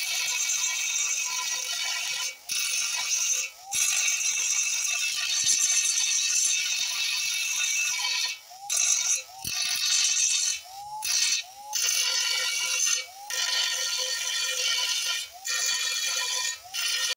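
Small handheld DC motor spinning an abrasive cutting disc against a steel lathe bed, a harsh, high grinding that stops briefly about nine times and starts again, the motor's whine rising as it spins back up after several of the breaks.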